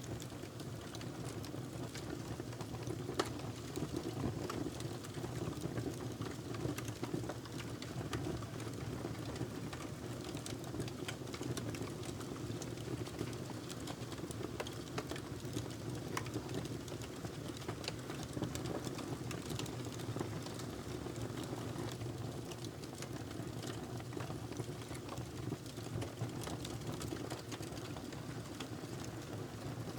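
Wood fire burning in a fireplace: a steady low rumble of flames with many small crackles and pops scattered irregularly throughout.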